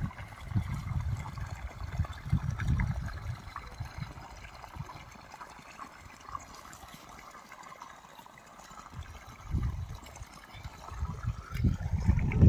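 Water pouring from the open end of an irrigation pipe into a shallow muddy puddle, a steady splashing flow. Bursts of low rumble cover it near the start and again in the last few seconds.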